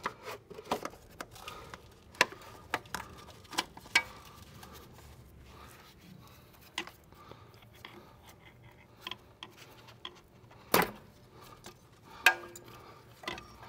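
Scattered small clicks and taps of plastic and metal as the ABS wheel speed sensor connector is worked loose from its housing, with one sharper knock near the end.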